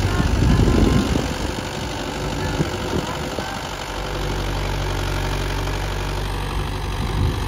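Diesel farm tractor engine running steadily under load, pulling a plough set to full depth. It is a little louder in the first second, with a few light knocks midway.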